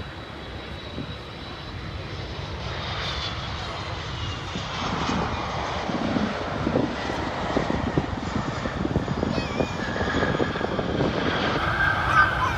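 Airbus A330 airliner's jet engines just after touchdown, the roar growing steadily louder through the landing rollout, with a high whine coming up near the end.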